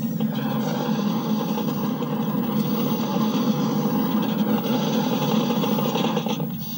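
Science-fiction sound effect of an approaching time quake: a loud, steady rumble that eases off near the end.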